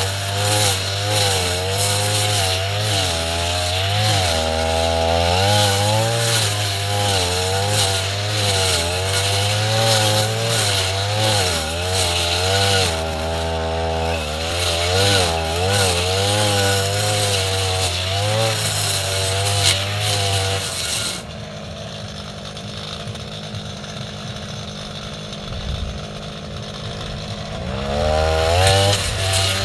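Two-stroke brush cutter engine running at high revs, its pitch rising and falling as the blade cuts through tall grass. About two-thirds of the way through it drops to a quieter idle for several seconds, then revs back up near the end.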